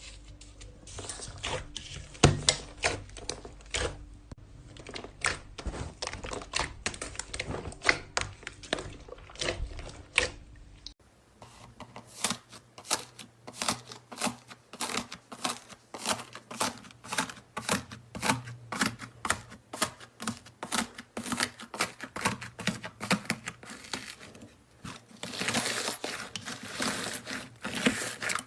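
Slime being played with by hand, making rapid crackling clicks and pops. The clicks come in quick irregular runs, with a denser crinkling stretch near the end.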